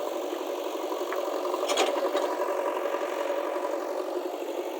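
A steady mechanical hum, like a motor or engine running, with one sharp click a little under two seconds in.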